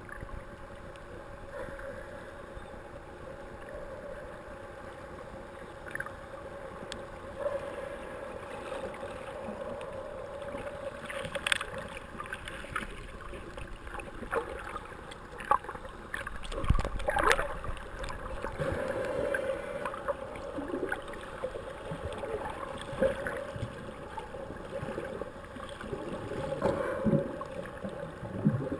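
Muffled underwater sound from a GoPro in its waterproof housing just below the surface: steady water noise with bubbling and irregular knocks and clicks. A heavy thump with crackling comes a little past the middle and is the loudest moment.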